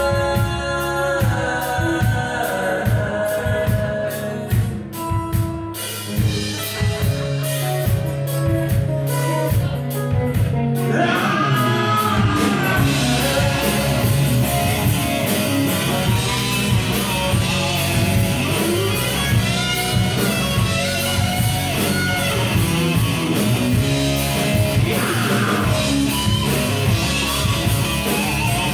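Live rock band playing: electric guitars, bass, drum kit and a lead singer through a PA. The first stretch is sparser, with held sung notes, and the full band with steady drumming fills in about eleven seconds in.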